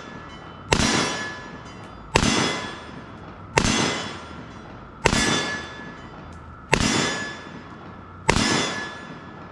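Six gunshots fired at a steady pace, about one every second and a half, each followed by a ringing clang that fades away, typical of rounds striking a steel target.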